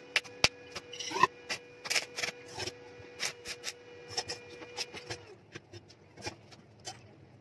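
Irregular metal clicks and knocks as a small electric drill head with a keyed chuck and steel brackets is handled against a homemade steel drill-press stand. The sharpest, loudest knocks come within the first second and a half, and the clatter thins out toward the end.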